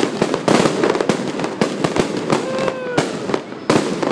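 Aerial fireworks going off in quick succession: a dense run of sharp bangs and crackles, several a second. They ease briefly a little after three seconds, then another loud bang.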